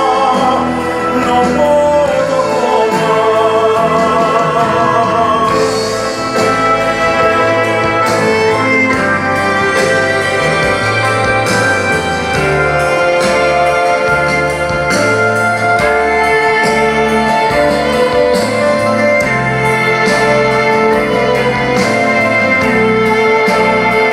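A recorded song in Greek played back over a hi-fi system: a singer with a strong vibrato for the first several seconds, then instruments carrying on with long held notes over a bass line.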